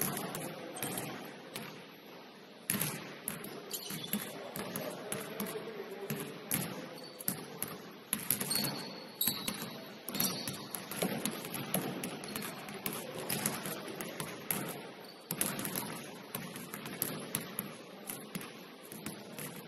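Basketballs bouncing on a hardwood gym floor: irregular thuds from several balls being dribbled and shot. A few short high squeaks come in about eight to ten seconds in.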